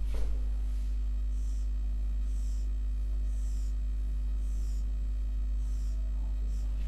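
Marker pen drawing diagonal hatch strokes on a whiteboard, a short swish about once a second, over a steady low electrical hum.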